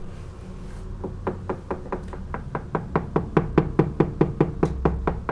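Knuckles rapping quickly on a wall-mounted mirror, about five knocks a second, to check for a hollow space behind it. The knocking picks up about a second in and is loudest in the middle.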